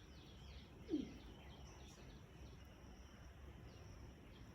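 Faint, quick high bird chirps, short downward-sliding notes repeated many times, over a quiet rural background; about a second in a brief low animal call sounds once.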